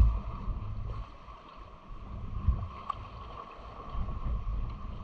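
Wind buffeting an action camera's microphone: a low rumble that swells and fades in gusts.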